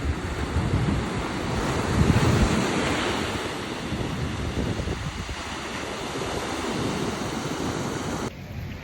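Ocean surf washing onto the beach, with wind buffeting the microphone; a wave swells loudest about two seconds in. The sound drops off abruptly near the end.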